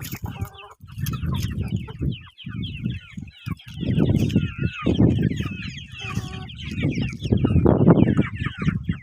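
A flock of chickens calling, with many short high peeps and calls overlapping throughout, over a low rumble that swells and fades several times.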